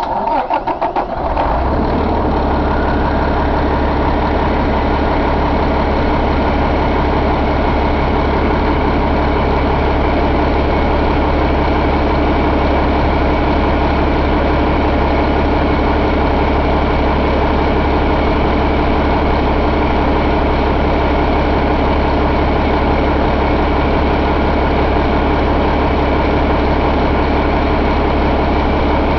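A 2012 Cummins ISL inline-six diesel cranks briefly, catches within about a second and a half, and then settles into a steady idle.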